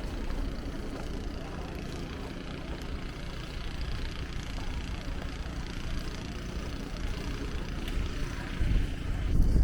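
Steady outdoor background noise, a low rumble with a hiss, with wind buffeting the microphone near the end.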